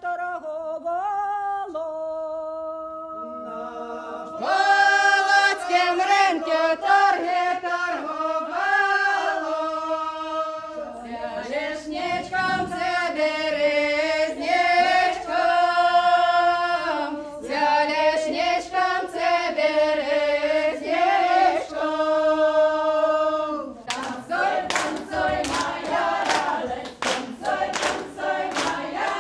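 Unaccompanied Slavic folk song. A single woman's voice leads for the first few seconds, then a group of mostly women's voices comes in full-voiced, singing in phrases with short breaks. About 24 seconds in, rhythmic hand clapping joins the singing.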